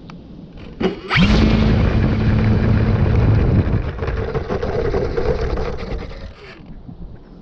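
Electric RC plane's motor and propeller spinning up suddenly to full throttle about a second in, a steady hum with rushing air. The hum shifts higher partway through and the sound dies down after about five seconds. It is a takeoff run that lacks the power to lift off, which the pilot puts down to the ESC throttle calibration.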